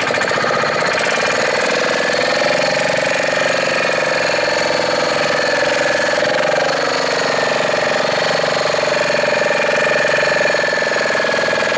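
A small fishing boat's diesel engine running steadily: a fast, even chugging with a steady whine over it that rises slightly in pitch in the first couple of seconds.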